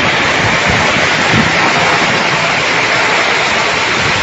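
Heavy tropical rain pouring down onto a flooded street, a loud steady hiss.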